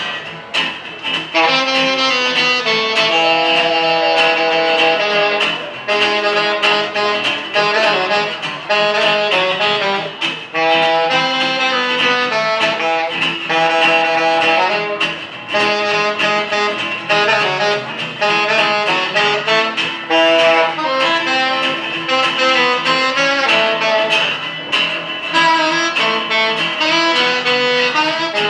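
Live band playing an instrumental passage with no singing: a saxophone-like horn carries the melody over steady percussion and guitar.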